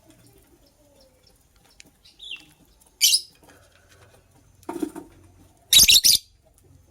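Lovebird giving a short high chirp, then a loud, shrill call about three seconds in. Near the end come two loud sudden bursts that reach low down, with a steady faint hum underneath.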